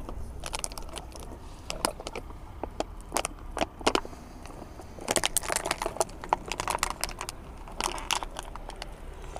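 A plastic bottle of sunflower cooking oil crinkling and crackling in irregular clusters of clicks as the oil glugs out of it into a van's fuel filler neck.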